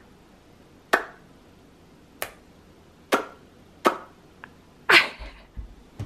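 A toddler's mouth pops and lip smacks, sharp single clicks about once a second, half a dozen in all, the loudest one about five seconds in.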